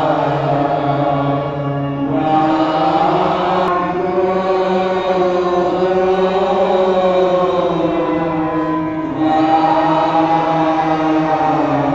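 Devotional chanting of a prayer in long held notes, the phrases separated by short breaks.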